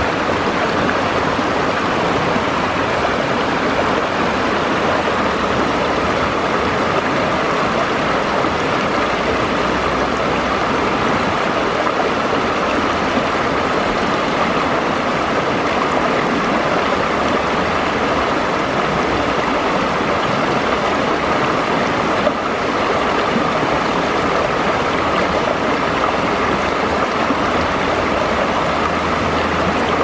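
Shallow river rapids running over boulders: a steady, loud rush of fast water.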